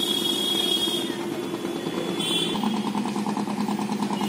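Ferry boat's engine running with a fast, steady pulsing beat; its note drops a little about halfway through. High chirping comes and goes above it.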